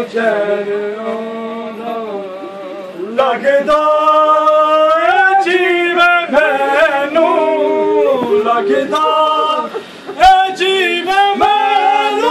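Men singing a noha, a Muharram mourning lament, in long drawn-out lines with held, wavering notes, growing louder about three seconds in. A single sharp thump sounds a little after ten seconds.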